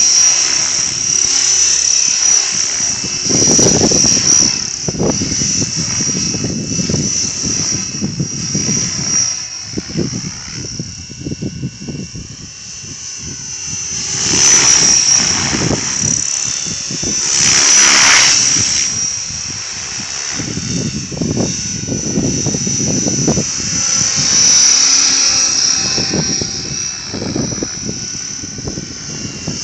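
A 550-size radio-controlled model helicopter in flight, with a steady high-pitched motor and rotor whine. It swells louder twice about halfway through, while gusts of wind buffet the microphone.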